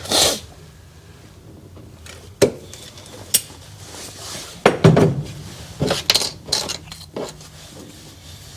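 Irregular light clicks, knocks and clatters of small hard objects being handled and set down, about eight in all, the loudest near the start and around five seconds in: plastic packer shims and tools being handled while the packers are glued to the van floor.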